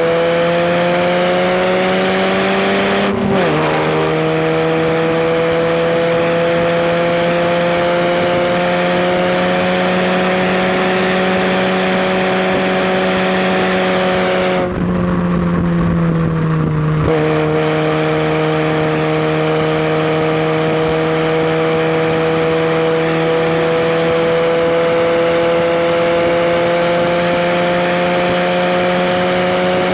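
Fiat barchetta's 1.75-litre four-cylinder engine pulling hard under load, its note climbing slowly through the gears, heard from inside the open cockpit. The pitch drops sharply at an upshift about three seconds in; around 15 seconds in the throttle eases briefly before another upshift at about 17 seconds, then the engine climbs again.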